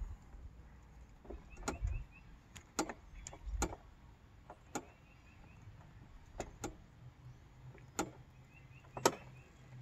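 About eight sharp clicks and knocks, scattered and uneven, the loudest near the end: metal hardware being fastened at a solar street light's wall bracket. Wind rumbles on the microphone underneath.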